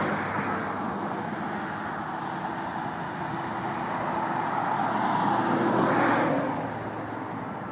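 Road traffic: a vehicle passes close by, its tyre and engine noise swelling to loudest about six seconds in and then fading, over a steady low traffic rumble.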